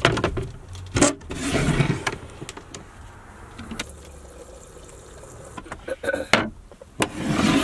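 Sharp knocks and rustling as a camper-van toilet's wooden lid and its cloth cover are handled, with a loud knock about a second in and two more near the end.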